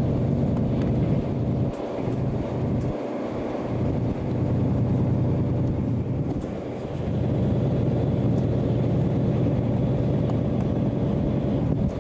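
Train running noise heard from inside a moving carriage: a steady low rumble that dips briefly a few times.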